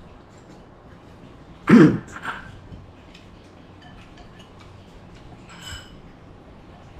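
A man coughs once, loudly, to clear his throat about two seconds in, with a smaller cough just after, while eating a bowl of noodle soup. Faint small clinks of chopsticks and a spoon in a ceramic bowl.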